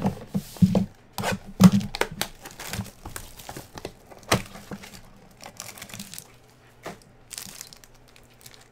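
Cardboard trading-card boxes knocked and shuffled on a table, with a run of sharp knocks in the first two seconds, then plastic wrapping crackling and crinkling as a box and a foil card pack are handled and opened.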